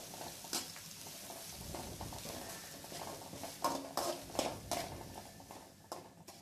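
Chopped onions sizzling in oil in an aluminium kadai as they are sautéed, with the scrape and clink of a perforated steel spatula against the pan as it stirs, several clinks in quick succession around four seconds in.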